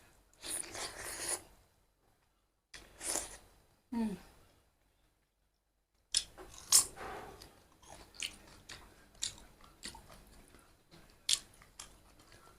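Close-up mouth sounds of a person chewing and crunching food, a few separate bites at first, then after a short pause a run of crisp crunches and wet chewing clicks.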